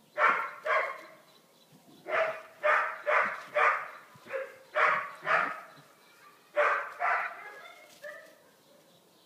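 A dog barking during rough play with another dog: about a dozen short barks in three bouts, two at the start, a quick run of seven in the middle and two more near the end.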